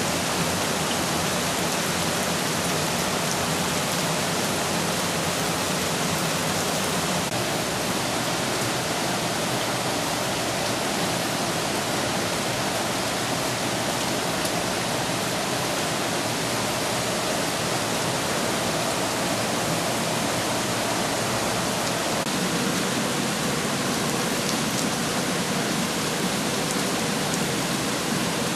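Steady, unbroken rush of storm water.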